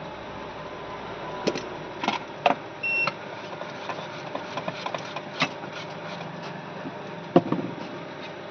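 Small clicks and taps of tools handling a new charging port as it is set onto a phone's circuit board, over a steady background hum. A short electronic beep sounds about three seconds in.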